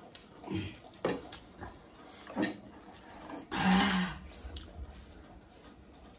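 Mouth and breath sounds of people eating spicy food and sipping drinks from glass mugs: a few short sounds, then a loud breathy exclamation a little past the middle.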